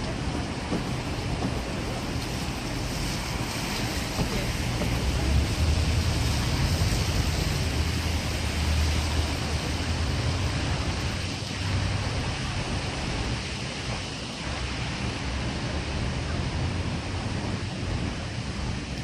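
Wind buffeting the microphone over a steady low city rumble, the rumble swelling for a few seconds about a third of the way in.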